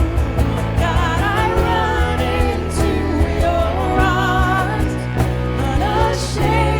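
A worship song with band accompaniment: a wavering sung melody over a steady bass and regular percussion hits.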